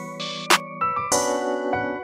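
Instrumental hip-hop beat with no vocals: sustained keyboard chords over a steady low note, a sharp snare-like hit about half a second in, and a cymbal-like wash near the middle.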